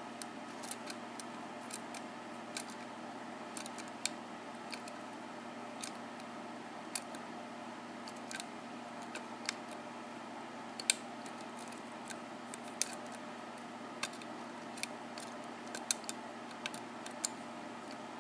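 Lock pick working the pins of a Manko 5-pin mortice cylinder: small irregular clicks and ticks, a few a second, some sharper than others, over a steady faint hum.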